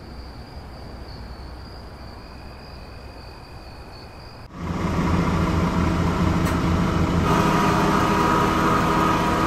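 Refrigeration unit of a produce-laden trailer running steadily on plug-in electric power instead of diesel. It is a constant mechanical hum with several steady tones, cutting in suddenly about four and a half seconds in after a faint hum.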